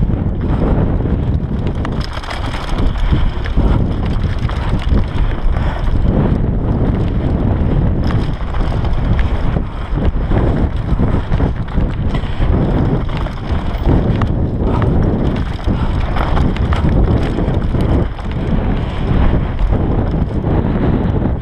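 Onboard sound of a downhill mountain bike (Bergamont BigAir 6.1) descending a dirt and gravel trail at speed: wind buffeting the microphone, with tyres crunching over the loose surface and the bike rattling over bumps and rocks.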